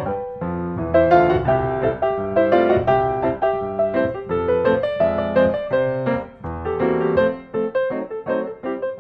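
Background piano music: a continuous flow of struck notes and chords.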